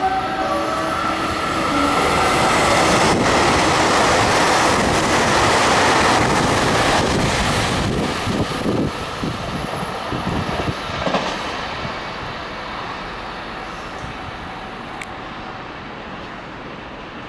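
A train running past on the rails: the rushing wheel and rail noise builds over the first couple of seconds, is loudest for several seconds, then fades steadily away. A held chord of tones dies out in the first two seconds.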